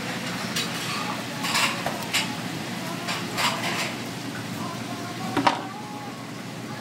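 Kitchen clatter: scattered knocks and scrapes of knives and utensils on work surfaces, a few times a second at most, over a steady background hum.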